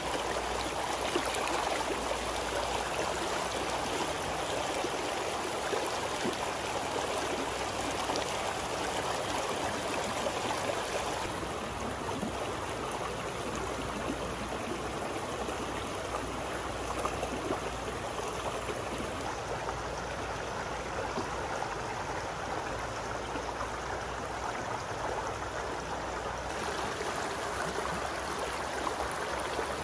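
Shallow stream water rushing steadily over rocks and through a plastic mesh net laid across it. The sound turns a little duller from about eleven seconds in and brightens again near the end.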